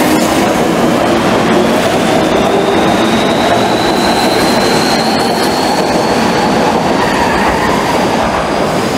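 Kobe Municipal Subway train pulling out along the platform, its wheels rumbling on the rails while the motor whine rises slowly in pitch as it accelerates. The sound eases off slightly near the end as the last car leaves.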